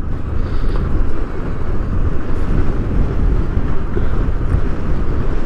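A motorcycle riding along a road: wind rushing over the bike-mounted camera's microphone together with the engine running, a steady rumbling noise.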